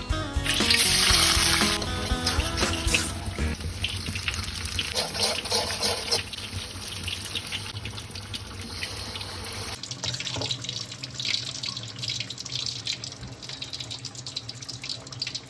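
Tap water running into a sink, as when washing vegetables, with a change in the flow about ten seconds in.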